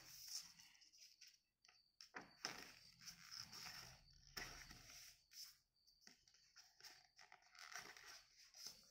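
A sheet of paper being folded and creased by hand: faint rustling and rubbing in short, irregular bursts.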